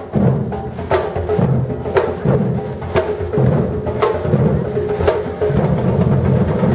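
Batucada percussion ensemble playing a rhythm: deep bass drums under a steady drum pattern, with a sharp high strike about once a second.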